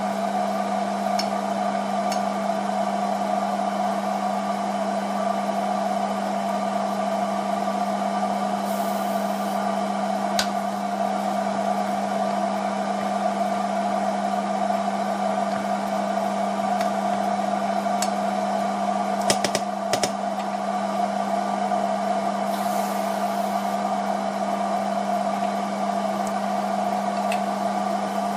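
Steady whirring hum of an electric fan motor, with a low droning tone. A few light clicks come around the middle.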